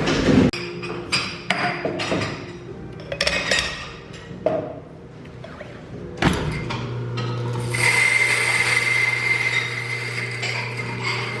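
Scattered clinks and knocks of hard objects being handled. About six seconds in, a machine starts running with a steady low hum, and a steady high whine joins it about two seconds later.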